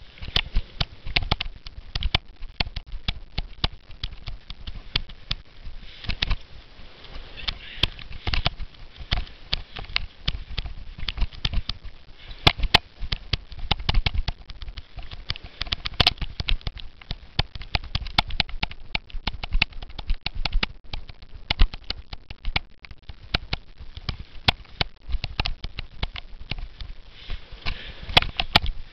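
Cyclo-cross bicycle and its mounted camera rattling over bumpy grass: a dense, irregular clatter of knocks with no let-up.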